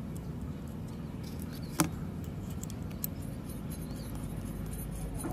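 Angle grinder armature and gear parts handled by hand: a sharp click about two seconds in and a lighter one about a second later, with faint small ticks around them, over a steady low rumble.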